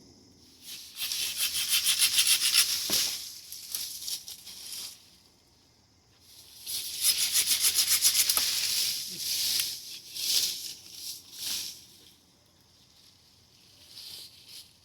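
Hand saw cutting wood in two bouts of fast, rasping strokes, each lasting a few seconds, with softer scraping on the wood between and after.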